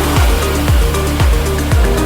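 Electronic background music with a steady beat: a deep kick drum about twice a second over a sustained bass line, with a hi-hat ticking.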